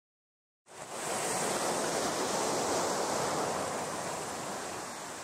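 Ocean surf washing onto a beach: a steady rush of waves that fades in under a second in and eases slightly toward the end.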